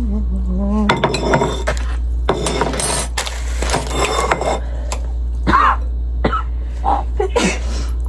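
Cutlery and dishes clinking in several short clattering bursts, with brief vocal sounds later on, over a steady low hum.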